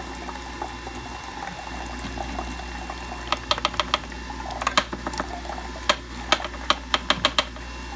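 Carrot juice draining from a Jack LaLanne's Power Juicer spout into a half-full glass, trickling over a steady low hum. From about three seconds in come several clusters of sharp clicks.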